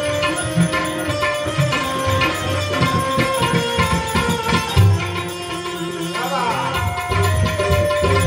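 Gujarati folk music: tabla drumming, with rapid strokes on the treble drum over deep strokes on the bass drum, under sustained notes from a harmonium.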